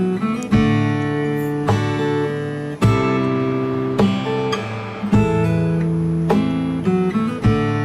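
Background music: an acoustic guitar strummed in a steady rhythm, a new chord struck about once a second.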